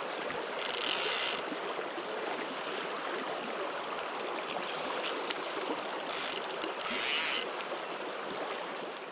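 Steady rush of river water, with three short high buzzes, one about a second in and two close together around six to seven seconds in: the click check of a fly reel as line is pulled off it.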